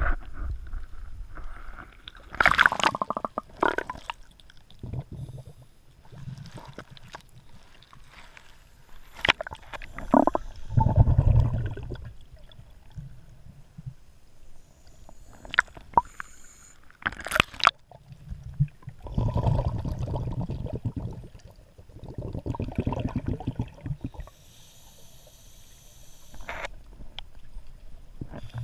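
Muffled underwater sound through a camera's waterproof housing: splashing and knocks as it goes under, then several long bursts of rumbling, gurgling bubbles, typical of a scuba diver's exhaled air from the regulator.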